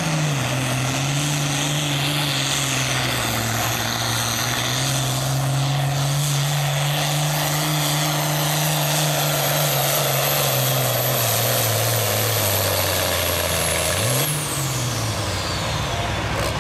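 Turbocharged diesel pulling tractor working under full load against the sled. Its engine note sinks steadily as the sled's weight builds and the engine lugs down. About two seconds before the end it revs briefly and the throttle comes off, and a high turbo whistle winds down.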